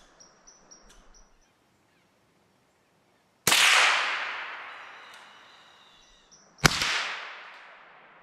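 A red squirrel chattering in a quick run of high squeaky notes for about the first second, then two shots from a Henry H001 lever-action .22 rimfire rifle about three seconds apart, each ringing out and dying away over a couple of seconds.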